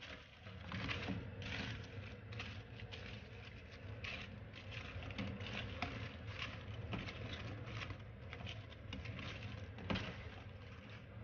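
A spatula scraping and turning fried chicken wings in a nonstick pan of sizzling buffalo sauce, a run of quick scrapes and clicks over a steady sizzle, with a steady low hum underneath and one sharper knock near the end.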